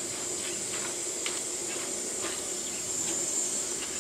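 Potato sticks deep-frying in a wok of hot oil: a steady sizzling hiss with faint scattered pops.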